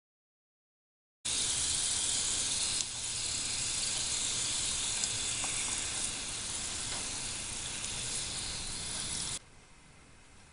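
Hot oil in a miniature pan sizzling steadily as potato fries deep-fry in it. The sizzle starts abruptly about a second in and cuts off suddenly near the end.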